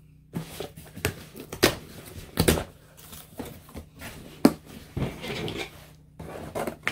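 Handling noise: a string of irregular knocks and taps as things are moved about on a table, with a short rustle of packaging a little past the middle.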